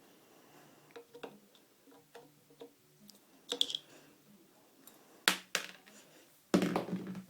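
Metal parts of a Mosin-Nagant rifle clicking and knocking as it is taken apart by hand. There are scattered light clicks, a ringing metallic clink about three and a half seconds in, two sharp knocks just after five seconds, and a longer, louder scraping knock near the end.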